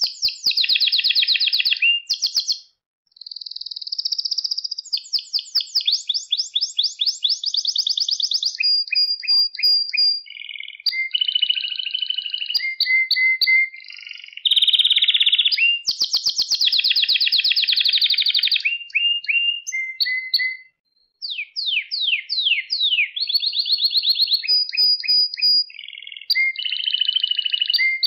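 Male domestic canary singing a long song of rapid trills and rolls, with repeated chirps and quick falling notes. It pauses briefly twice.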